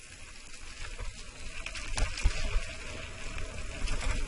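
Mountain bike riding down a dirt and gravel singletrack, heard from a camera on the bike: tyres crunching over loose stones under a wind rumble on the microphone, with a few sharp knocks, the loudest about two seconds in.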